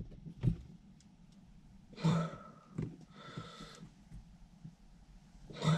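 Mostly quiet, with a few short handling noises and breaths as a dash cam and its windscreen mount are turned around by hand; the loudest come about two seconds in and near the end.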